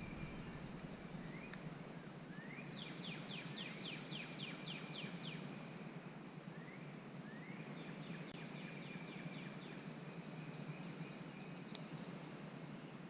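A songbird singing twice, each song a rising note followed by a quick series of short, even notes, over a faint steady outdoor hiss.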